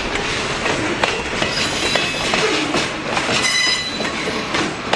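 Log-loaded freight cars rolling past on the rails, their wheels clicking over the rail joints, with a brief high wheel squeal a little past the middle.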